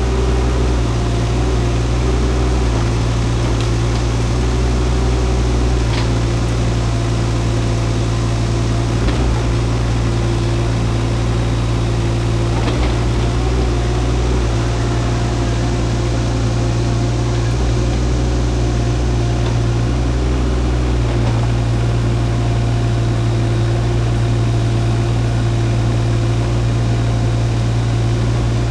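Shantui mini excavator's diesel engine running steadily as the machine works, its low drone shifting in tone every few seconds, with a few faint knocks.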